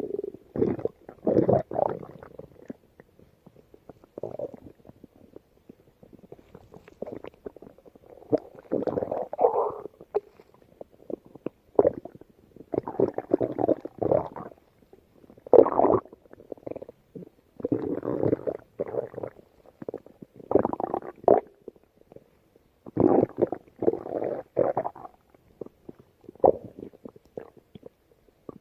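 Stomach growling in a series of irregular rumbles, some brief and some lasting a second or more, separated by short pauses.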